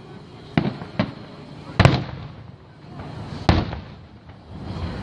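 Aerial firework shells bursting: four sharp booms, the loudest a little under two seconds in.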